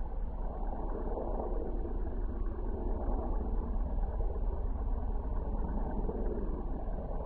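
Boeing Stearman Kaydet biplane's radial engine and propeller droning steadily as it flies overhead, swelling slightly in the middle.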